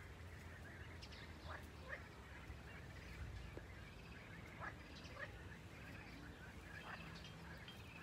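Faint outdoor ambience with scattered short animal calls, about one every second or so, over a low steady hum.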